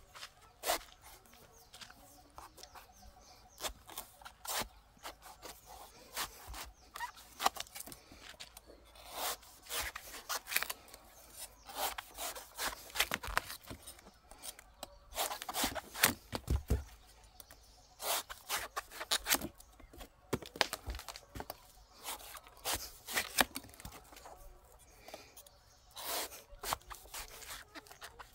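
Large kitchen knife slicing through the fibrous husk of a fresh green coconut: repeated crisp cutting and tearing strokes in irregular clusters with short pauses, and one heavier, dull knock about halfway through.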